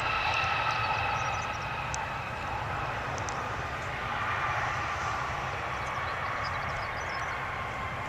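Jet airliner's engines running after touchdown: a steady rush of jet noise with a high whine that slowly falls in pitch as the engines spool down from hard braking on the landing rollout.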